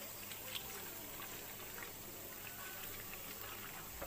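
Onion fritters deep-frying in hot oil: a steady sizzle with scattered small crackles and pops.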